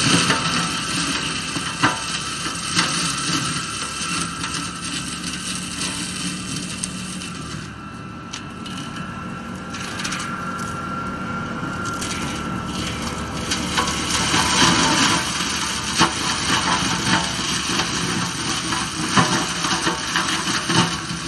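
Forestry mulching head on a New Holland skid steer, running under the machine's diesel engine and grinding invasive olive brush into chips, with sharp cracks of wood snapping now and then. The grinding eases about eight seconds in and grows louder again from about fourteen seconds as the head bites into more brush.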